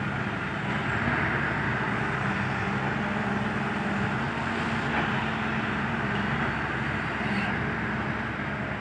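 A heavy diesel engine running steadily under a broad mechanical noise, with a low hum that holds at an even pitch.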